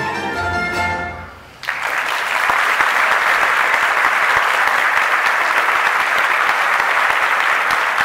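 A tamburica band plays its final chord, which dies away about a second and a half in. Then the audience breaks into steady applause.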